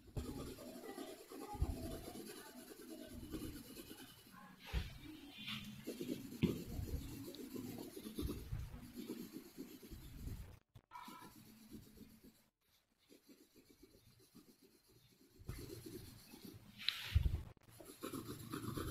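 Pencil scratching and rubbing on drawing paper as a leaf drawing is shaded, in irregular strokes with low knocks from the paper and camera being moved. It goes quieter for a few seconds past the middle, then the strokes resume.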